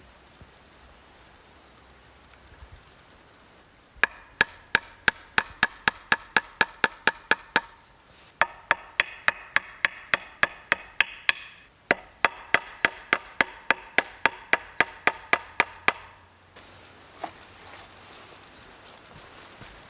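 Quick, even chopping strikes of a tool into wood, about four a second, in three runs with short breaks, each blow with a short ringing note.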